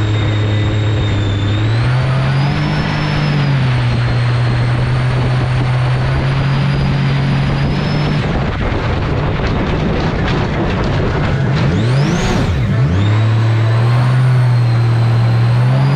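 Mini jet boat engine running under way, with a steady drone over rushing water and wind. Its pitch rises briefly a couple of seconds in, then falls away about halfway through, leaving mostly the rush of water. It dips and climbs back up to speed near the end.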